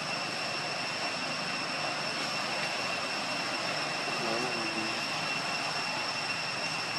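Steady outdoor background drone: an even hiss with two steady high-pitched tones running through it.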